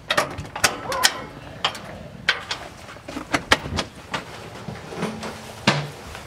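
A storm door being unlatched and opened: the latch handle clicks and the door knocks and rattles in a run of sharp clicks, followed by footsteps coming in over the threshold.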